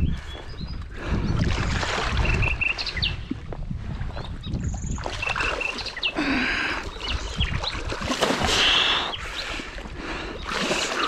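A hooked wels catfish thrashing at the surface right beside a float tube, splashing and churning the water in irregular surges that are loudest in the second half. A few short bird chirps come through in the first half.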